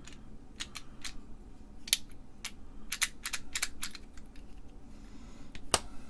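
Irregular light clicks and taps of IC chips and black plastic IC carriers being handled on a workbench, with a sharper click near the end.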